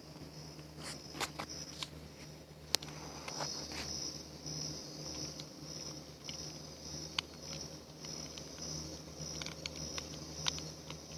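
Campfire wood crackling: irregular sharp pops and snaps, a few much louder than the rest, over a steady high hiss.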